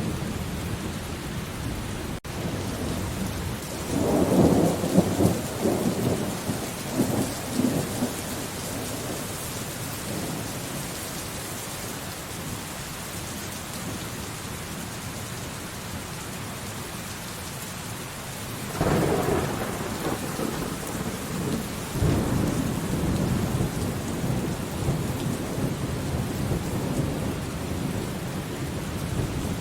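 Thunderstorm: steady rain with rolling thunder. Rumbles swell a few seconds in and die away, then come again twice in the second half.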